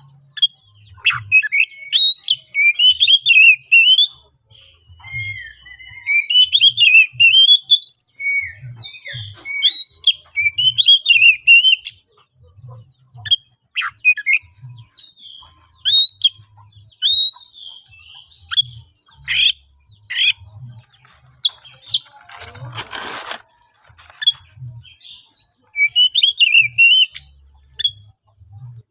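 Oriental magpie-robin singing a loud, varied song of fast whistles and chirps in bursts with short pauses, with one brief harsh rasp about three-quarters of the way through. It is the agitated, challenging song of a bird in full fighting mood, the kind used to provoke other magpie-robins to reply.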